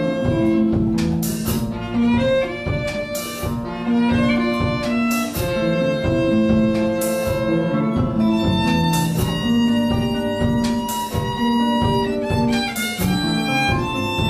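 Live jazz combo playing: a violin carries the tune in long held notes over acoustic guitar, electric bass and a drum kit, with cymbal crashes every second or two.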